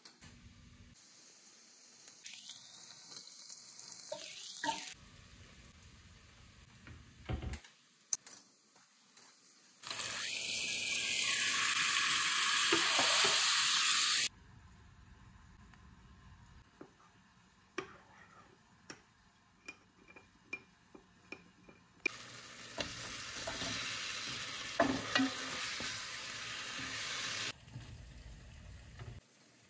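Hissing, sizzle-like noise in three stretches of a few seconds each, starting and stopping abruptly; the middle stretch is the loudest. Light clicks and knocks fall between them.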